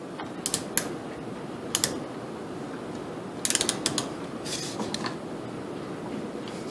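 Ratcheting torque wrench clicking while it is worked to loosen an AR-15 barrel nut: a few single clicks, then a quick run of clicks about three and a half seconds in.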